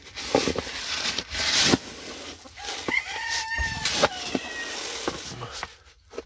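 A plastic scoop digging and rustling through dry grain chicken feed in a plastic bin, loudest in the first two seconds. A rooster crows once in the middle, for nearly two seconds.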